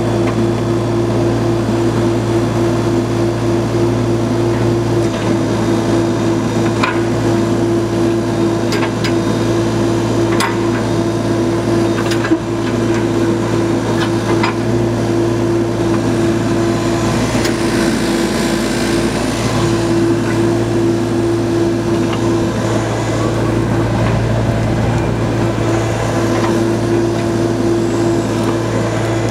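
Kubota diesel engine of a 4-ton mini excavator running at a steady pitch while the boom, arm and bucket are worked, with a few sharp knocks from the machine in the middle of the stretch.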